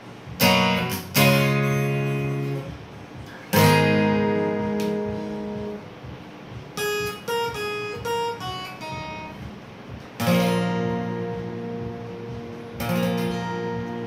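Solo acoustic steel-string guitar with a capo, played instrumentally with no singing. Three strummed chords ring out, then a short run of single picked notes plays about seven seconds in, and two more chords are strummed and left to ring.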